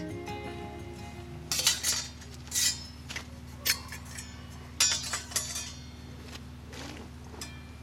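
Stainless steel camp cups and a pot clinking and scraping against each other as they are handled and nested, in short separate clinks about a second apart, over a steady low hum.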